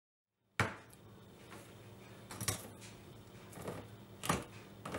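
Hand-held can opener turned around the rim of a steel food can, its cutting wheel biting through the lid in a series of sharp clicks, the first and loudest about half a second in, then roughly one a second.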